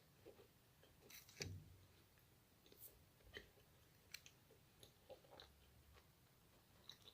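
Macaron being chewed close to the microphone: faint, irregular little crisp clicks and soft mouth sounds, with a louder bite about one and a half seconds in.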